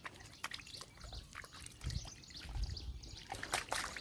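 A dog close by, with a run of irregular small clicks and a few low thumps.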